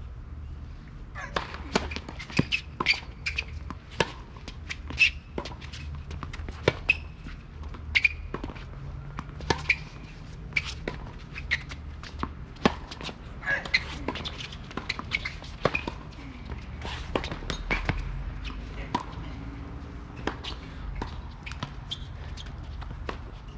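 Tennis rally on a hard court: repeated sharp pops of racket strings striking the ball and the ball bouncing off the court, following one another every half second to a second or so.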